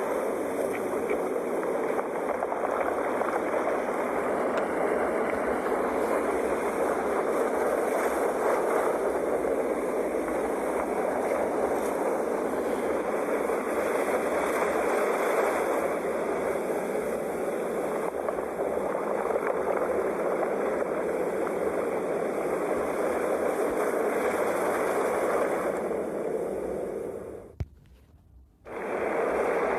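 Ocean surf washing in a steady, continuous rush with gentle swells. About 27 seconds in it fades to near silence for a second, with a single click, then comes back abruptly, like a loop join in the recording.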